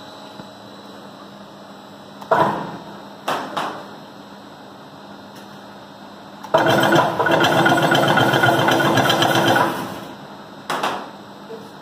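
Chain link fence machine and wire mesh at work: a few sharp metal clanks, then about three seconds of loud mechanical rattling as the machine runs, and one more clank near the end.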